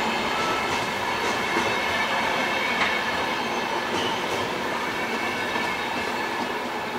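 VR double-deck passenger coaches rolling past close by, a steady rumble of wheels on rail with a high, steady squealing whine and a few light clicks over the rail joints.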